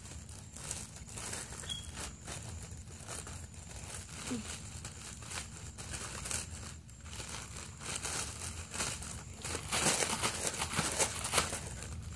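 Clear plastic sandwich bag crinkling as it is opened up and handled, a steady run of rustles that gets louder near the end.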